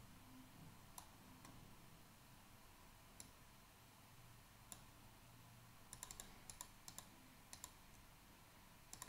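Near silence broken by faint, scattered clicks of a computer mouse and keyboard, with a quick run of clicks about six to seven seconds in.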